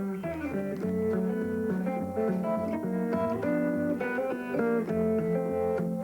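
Guitar played in the Muhlenberg thumbpicking style: a steady thumbed bass pulse under picked melody notes.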